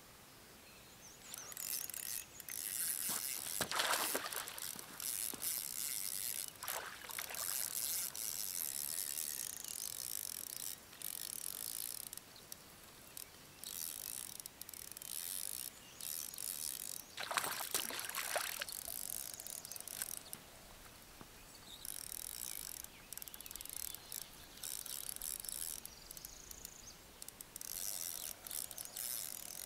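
Spinning fishing reel being cranked in spells: a fast ratcheting clicking that stops and starts with short pauses. Three louder swishes cut in, about 4, 7 and 17 seconds in.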